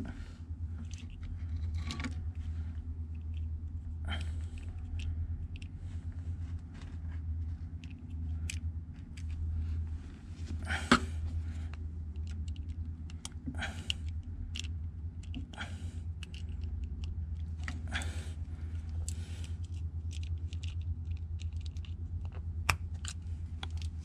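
Hands handling a braided wiring harness and plastic electrical connectors: scattered small clicks and rustles, one sharper click about eleven seconds in, over a steady low hum.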